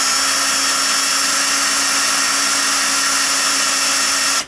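Electric drill with a 1/16-inch bit running at a steady speed, drilling a pilot hole into a synthetic plastic rifle stock, and stopping abruptly near the end.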